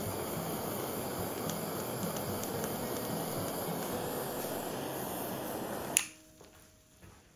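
A steady rushing hiss that stops abruptly with a sharp click about six seconds in, followed by faint background sound.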